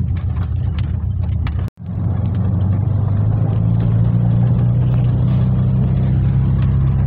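Volkswagen Kombi van driving on a dirt road, heard from inside the cab: a steady low engine and road drone. The sound cuts out for a moment about two seconds in, then the drone resumes, rising slightly in pitch.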